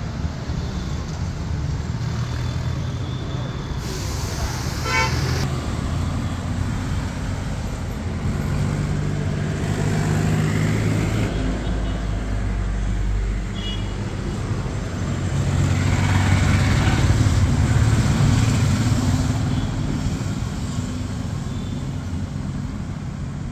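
Street traffic: vehicle engines running and passing with a steady rumble, one passing louder in the second half, and a horn sounding briefly.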